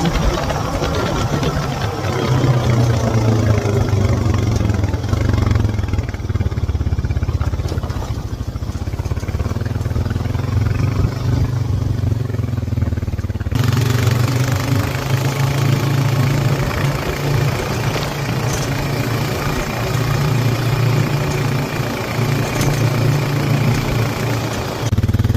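ATV engine running steadily, with an abrupt change in its sound about halfway through.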